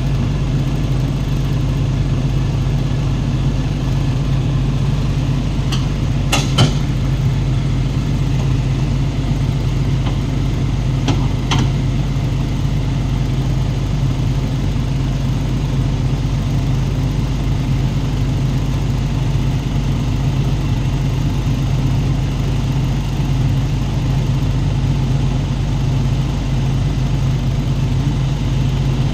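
Heavy diesel engine running steadily as a SANY SY200C crawler excavator hauls itself up onto a truck's flatbed, with two short clanks about six and eleven seconds in.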